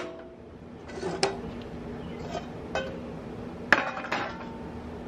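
Metal hand tools and a stainless steel bowl clinking and knocking against a steel workbench: a handful of separate metallic clinks, the loudest nearly four seconds in.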